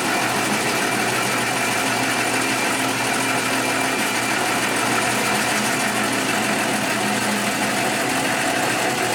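Metal lathe running steadily under power, its motor and gearing humming as a cleanup cut is taken on the bar.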